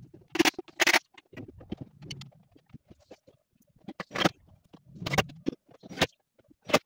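Irregular wooden knocks and scrapes as marine plywood panels are handled and fitted into a wardrobe cabinet, with a few sharper knocks standing out, about half a second in, near one second and again around four to seven seconds.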